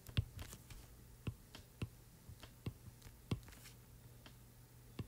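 Faint, irregular taps and clicks of a stylus on a tablet screen while handwriting, over a low steady hum.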